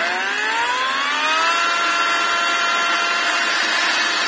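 Violeworks cordless angle grinder running free with no load. Its whine rises as it spins up, then levels off abruptly about a second and a half in and holds a steady pitch. The owner takes this for a software speed limit: the motor could keep accelerating, but the electronics hold it back.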